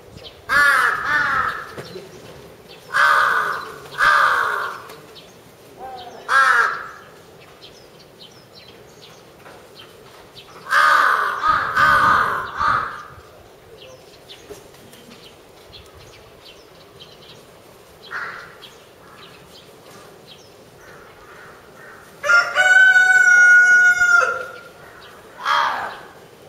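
Crows calling in repeated short bouts of harsh caws. Near the end, a rooster crows once, a long call of about two seconds and the loudest sound here.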